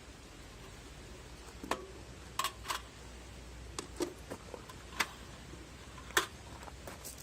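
Scattered sharp clicks and light taps, about a dozen at irregular intervals, from the wood stove's chimney parts being handled and fitted together.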